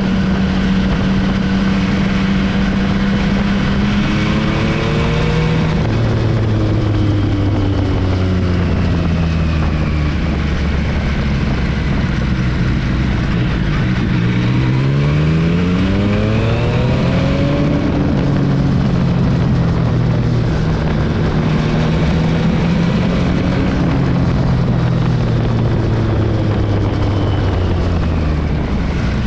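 Yamaha MT-09 SP's inline three-cylinder engine through an Akrapovic exhaust, running under way. Its note climbs and then drops in steps several times, as with gear changes, and falls away now and then as the throttle eases.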